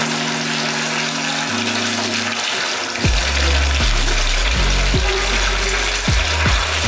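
Fish pieces deep-frying in hot oil in an iron kadai: a steady, loud sizzle and bubbling. Background music with low held notes plays underneath, its bass growing stronger about three seconds in.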